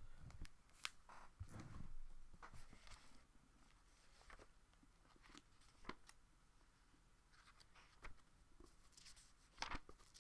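Faint rustles and soft clicks of a large hardbound book being handled and its paper pages turned, with a louder rustle near the end.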